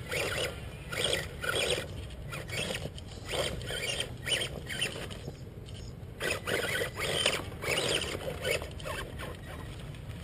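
Radio-controlled rock crawler's electric motor and drivetrain whining in short throttle bursts, about two a second with a brief pause in the middle, as it climbs over rocks, with the tyres scrabbling on the stones.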